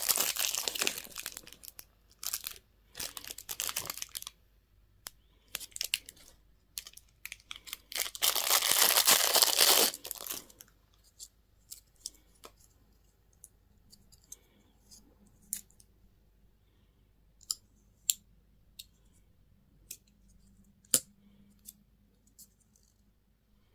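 Candy and toy packaging being torn open and crinkled, with a loud tearing burst about eight seconds in. After that come scattered light clicks and taps.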